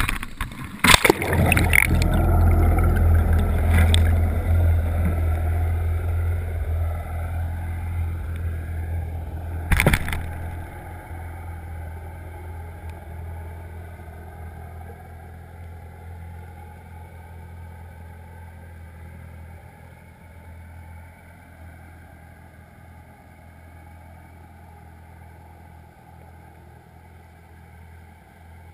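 Knocks and a splash as a crab pot goes over the side. Then, heard through the water, the boat's engine and propeller make a low steady hum that slowly fades, with one sharp knock of the pot about ten seconds in.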